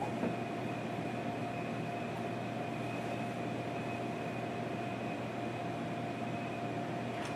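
Steady room noise: an even hiss and low hum with two thin, constant whining tones, the higher of which fades out near the end.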